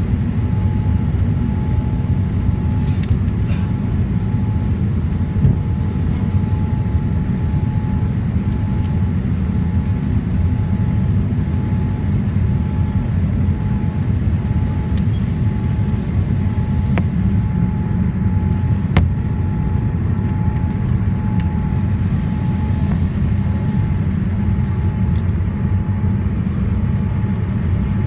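Steady low roar of a Boeing 787-9 airliner's engines and airflow heard inside the cabin, with a thin steady whine above it and a couple of faint clicks.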